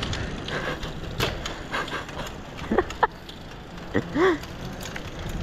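Custom freeride mountain bike being ridden, with steady tyre and wind noise and scattered knocks and rattles. A few short pitched sounds come through about three and four seconds in.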